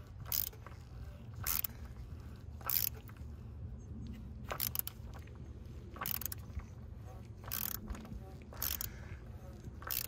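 Hand ratchet tightening an oil filter cartridge cap, its pawl clicking in short bursts on each back-stroke, about every second or so.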